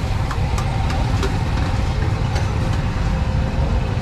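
A steady low engine-like rumble with a faint constant hum over it, and a few light clicks and clatters scattered through it.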